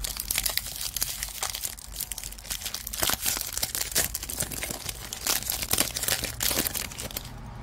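Wax-paper wrapper of a 1992 Topps baseball card pack crinkling and tearing as it is peeled open by hand, in quick irregular crackles that stop a little past seven seconds in.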